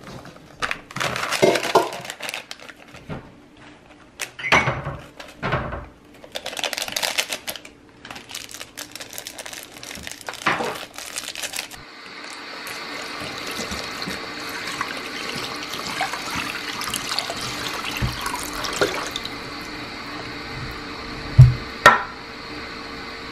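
Powdered hot pot soup base being shaken out of its packet into a stainless steel pot, with irregular rustling bursts. From about halfway, water pours steadily into the pot. Two loud thumps come near the end.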